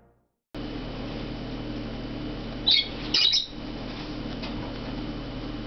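Parrot chick giving a few short, high chirps close together about halfway through, over a steady low hum.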